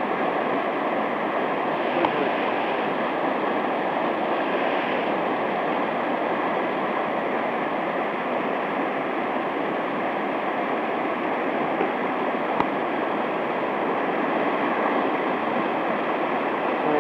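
Fast-flowing mountain stream rushing over rocks, a steady, even noise of running water. Two faint clicks, about two seconds in and again past the middle.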